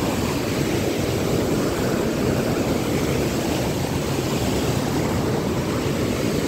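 Fast mountain river rushing over boulders: a loud, steady whitewater rush.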